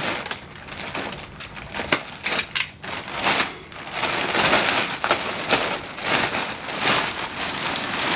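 Clear plastic bag crinkling and rustling as it is pulled off a heavy amplifier by hand: an irregular crackle that grows louder about halfway through.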